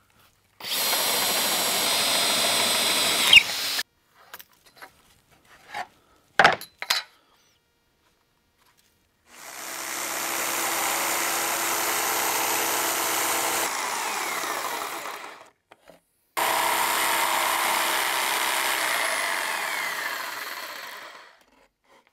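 A cordless drill with a Forstner bit boring through a poplar board for about three seconds, then a few short knocks. After that a jigsaw cutting the wood between the two drilled holes in two long steady passes, the second one trailing off at its end.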